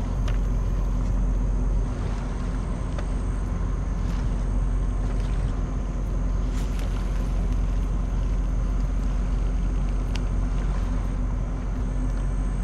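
Steady low drone of ship's engines, with a few faint clicks on top.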